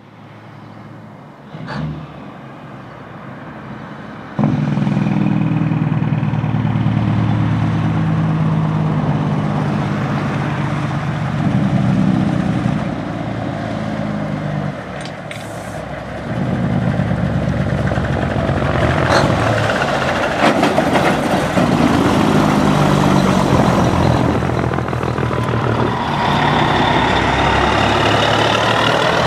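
A convoy of big-rig diesel trucks, led by a long-nose Peterbilt with tall exhaust stacks, drives past with engines running loud. The engine note steps up and down several times as the trucks pull and shift.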